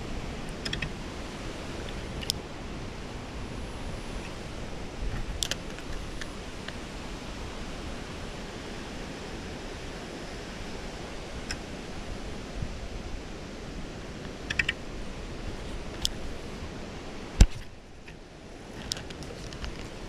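Steady rushing outdoor noise with a few light clicks scattered through it, and one sharp knock about three-quarters of the way in, after which the rush drops briefly.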